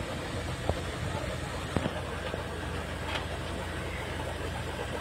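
Vehicle engine running steadily at low speed, a low hum throughout, with two short sharp knocks about one and two seconds in.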